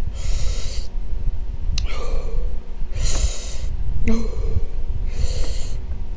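Three sharp, hissing breaths from a woman, each under a second, spaced a couple of seconds apart, as she reacts to the burn of chile-covered watermelon. A couple of short clicks fall between them.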